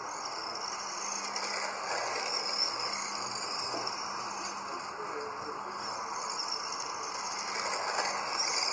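Radio-controlled dirt oval modified cars running laps, a high motor whine rising and falling over a steady hiss, swelling louder near the end.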